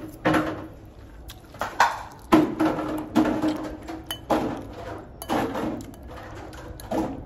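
Metal fork clinking and scraping on a plate of spaghetti while eating, a string of sharp clicks and knocks.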